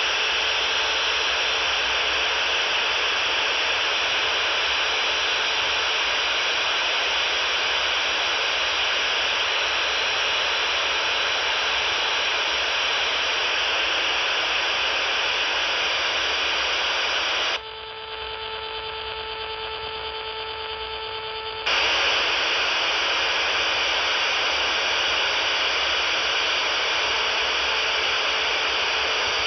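Over-the-horizon radar signal on 31.000 MHz heard through a software-defined radio receiver: a steady, harsh buzzing hiss filling the receiver's audio. About 18 seconds in it gives way for about four seconds to quieter band noise with a few faint steady tones, then comes back abruptly.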